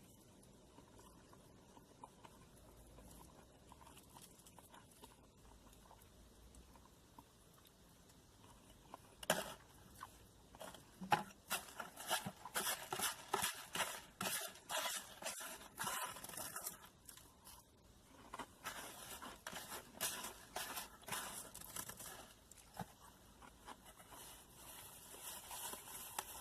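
Eating sounds: quiet at first, then from about nine seconds in a long run of sharp crunches and rustles of someone chewing and handling crispy fried food.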